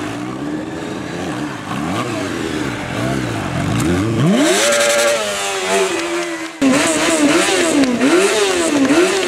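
Honda CBR600 F4i sport bike's inline-four engine revving, the throttle rising and falling, climbing to high revs about four seconds in and held briefly. After a sudden jump in loudness near the middle, the throttle is blipped up and down about once a second.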